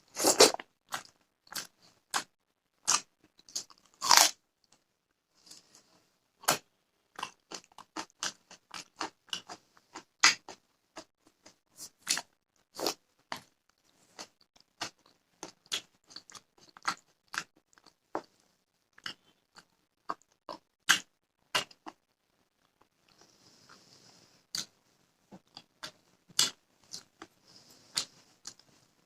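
Close-up eating sounds of a meal of fish curry, rice and raw onion: wet chewing with frequent sharp crunches and mouth smacks, several a second. The loudest bites come about half a second in and about four seconds in.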